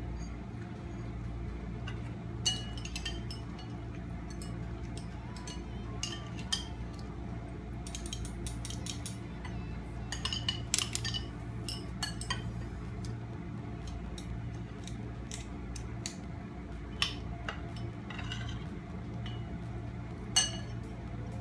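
Metal spoons clinking and scraping against ceramic bowls while eating, in scattered short clinks that come thickest about halfway through, over a steady low hum.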